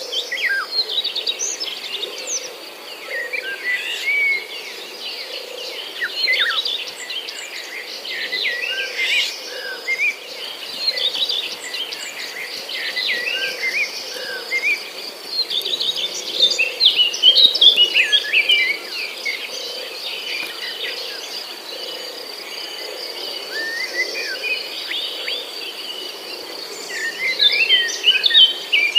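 Many birds chirping and twittering at once, short quick calls overlapping, over a steady high insect buzz. The chirping grows busier about halfway through and again near the end.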